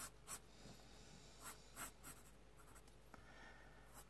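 Pencil scratching on sketchbook paper in short, quick strokes as a drawn line is darkened freehand. There are two strokes at the start and a few more about a second and a half in.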